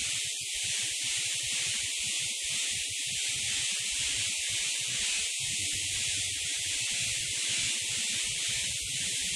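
Steady hiss of static-like noise with an uneven, flickering low rumble beneath, holding at one level throughout.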